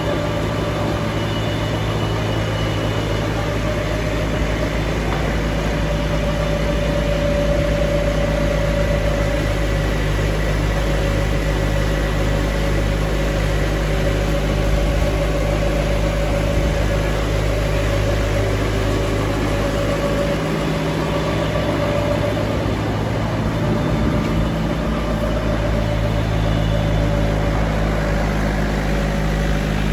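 Bagasse dryer machinery running steadily: the electric motor, belt conveyors carrying shredded bagasse and the rotary dryer drum make a continuous loud drone with a low hum.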